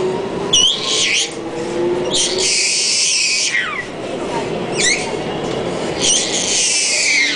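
A baby's high-pitched squeals, a run of short falling squeaks and two longer shrieks, over the steady rumble of a metro train running.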